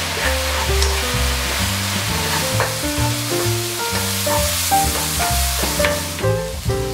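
Seasoned shiitake mushroom slices sizzling in an oiled nonstick frying pan over medium-low heat as they are stirred with a wooden spoon, cooking down until they wilt. Background music with melodic notes and a bass line plays over it.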